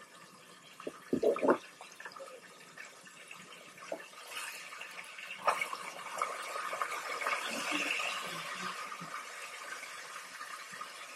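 Breaded chopped steak frying in oil in a pan, a steady sizzle that grows louder from about four seconds in. Two knocks come about a second in, and a click comes midway.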